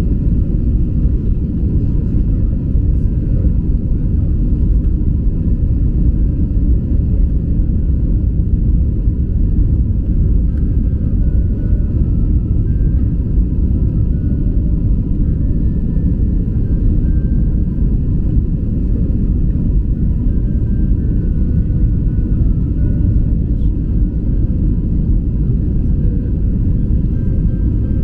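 Steady low rumble of jet airliner cabin noise, the engines and rushing air heard from inside the passenger cabin.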